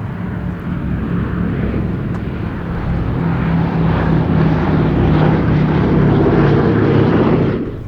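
Piston engines of a propeller aircraft running, growing steadily louder as it approaches, then cutting off abruptly near the end.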